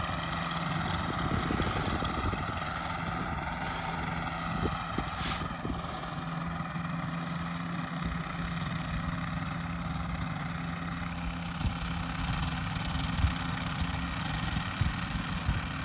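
Ultralight aircraft engine running steadily at low power while the plane taxis, heard from some distance. It runs a little unevenly, which the onlooker puts down to rich carburettors and tuning that is slightly off.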